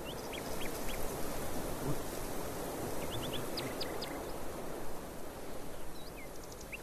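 Steady outdoor background hiss with scattered short, high chirps of small birds, coming in little clusters of two to four.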